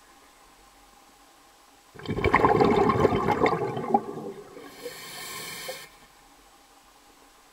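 A loud rush of water lasting about two seconds, fading into a thinner high hiss that stops abruptly about a second and a half later.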